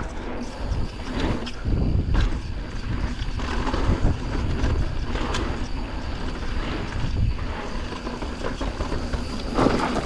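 Mountain bike riding down a dirt trail: tyres rumbling over the ground, with irregular knocks and rattles from the bike over bumps.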